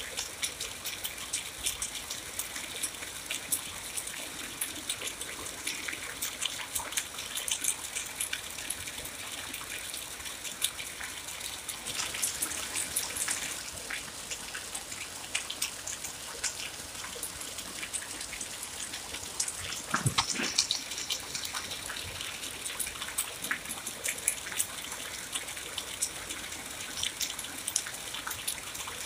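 Steady rain falling, with many separate drops ticking close by over an even hiss. About two-thirds of the way through comes one louder, deeper splash.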